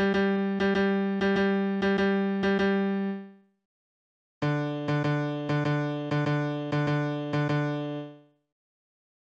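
Computer playback of a hymn's bass part in a piano-like synthesized tone. One note is repeated in a quick dotted long-short rhythm and stops for a rest about three and a half seconds in. About four and a half seconds in, a lower note resumes the same rhythm, then stops again near the end.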